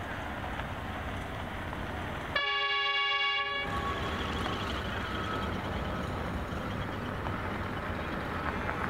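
Pacific National NR class diesel locomotive sounding its horn once, for about a second, a couple of seconds in, over a steady low rumble as the container train approaches from a distance.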